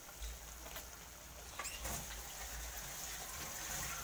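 Fish simmering in broth in a frying pan on a gas stove: a steady bubbling hiss with a few small pops.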